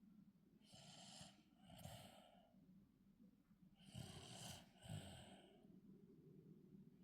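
A 22-month-old toddler snoring faintly in sleep: two snoring breaths about three seconds apart, each in two quick parts.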